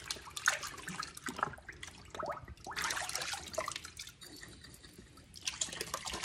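Water splashing and sloshing as a glass bottle is rinsed by hand in a tub of water, with a few gurgles a couple of seconds in and water pouring out of the bottle near the end.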